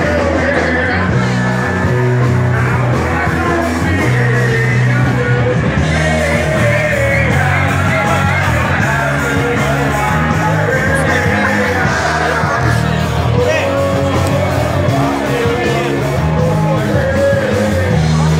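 Loud rock music with singing, a steady bass line stepping between held notes under the vocal.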